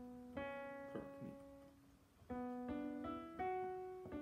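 Soft background piano music: single notes and small chords struck and left to fade, with a brief lull about two seconds in before several notes follow in quick succession.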